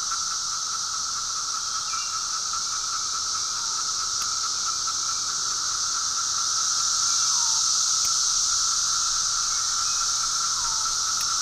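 Chorus of 17-year periodical cicadas: a steady, shrill buzz with a steadier droning tone beneath it. Every few seconds a short call drops in pitch at its end.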